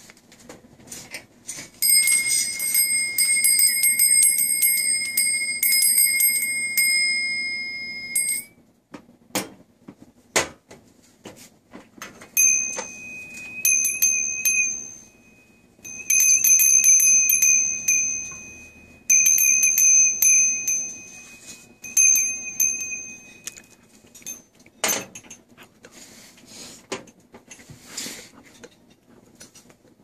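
Door bells hung on spring rods, shaken by hand so the clapper rings them. One bell rings steadily for about six seconds. After a pause a second, slightly higher-pitched bell, the black one, rings in several shakes with short breaks. There are a few knocks as the bells are handled and set down.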